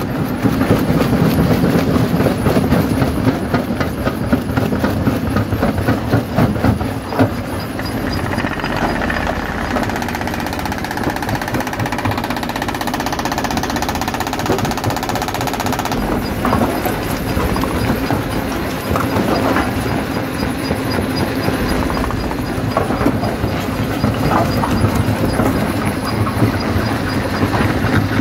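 Stone jaw crusher running, with rocks knocking and clattering between its jaws as they are crushed over a steady machine rumble.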